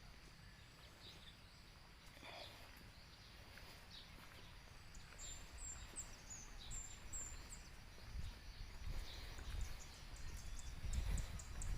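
Birds chirping outdoors. Short high notes repeat in a quick series through the middle, and a lower call comes about two seconds in. From about eight seconds in, a low rumble grows louder beneath the birds.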